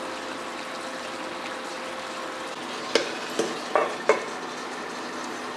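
Chicken pieces in green marinade sizzling steadily in a frying pan, with a faint steady hum for the first half. About three seconds in, a steel lid is set on the pan with four quick clinks.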